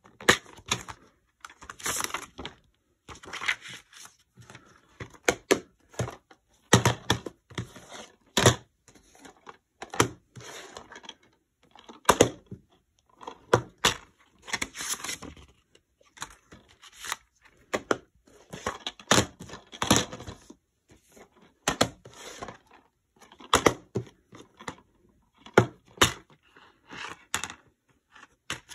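Plastic DVD cases being handled: irregular clicks, snaps and clacks as the cases are opened, closed and set down on a wooden table, with a few brief rustles.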